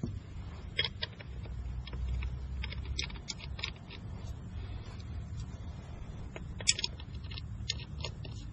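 Irregular light metallic clicks and taps of lug nuts being fitted onto a tractor wheel's studs by hand, with one sharper click about two-thirds of the way through, over a steady low rumble.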